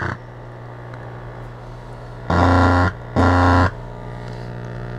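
Home-built LM1875 chip amplifier just powered up: a click at switch-on, then a steady mains hum from its speaker. About two seconds in come two loud, harsh buzzing bursts, each about half a second long. The amplifier is faulty and oscillating, which the builder puts down to the input and the speaker sharing one ground return.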